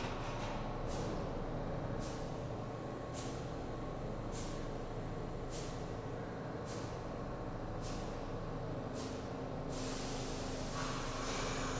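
Stopped subway train at a platform, its air system letting out short hisses about once a second over a steady low rumble. Near the end a longer, steadier hiss sets in.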